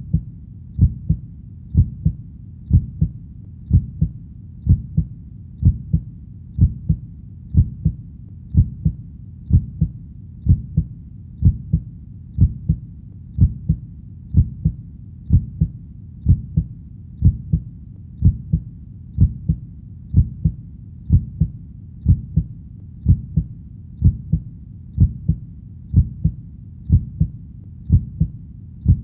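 Heartbeat, each beat a low double thump (lub-dub), repeating steadily at about one beat a second over a faint low rumble between beats.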